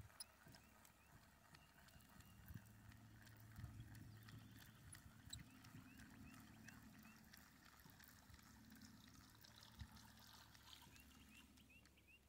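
Near silence: faint outdoor pond ambience with scattered light clicks and a low hum, and a short run of small high chirps heard twice, about midway and again near the end.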